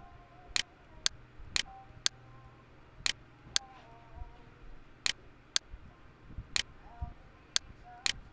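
Computer mouse button clicking: about eleven sharp clicks, mostly in pairs about half a second apart, as windows are dragged and a button is clicked.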